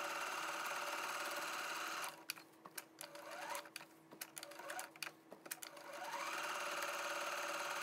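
Domestic sewing machine stitching steadily, then stopping about two seconds in for a few seconds of light clicks while the needle stays down and the fabric is pivoted at a corner; near six seconds the motor speeds back up and stitching resumes.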